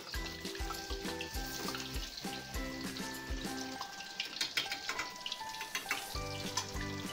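Batter-coated potato patties deep-frying in hot oil in a steel kadhai: a steady sizzle with fine crackles. Background music with a steady beat plays over it and drops out for about two seconds past the middle, leaving the sizzle alone.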